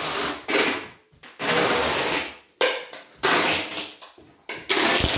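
Computerized embroidery machine stitching a design, its needle running in bursts of half a second to a second with short pauses between.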